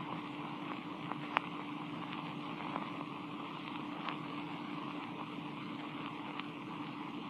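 Surface noise of a Vitaphone sound-on-disc record between sounds: a steady hiss with a faint steady low hum and a few scattered clicks.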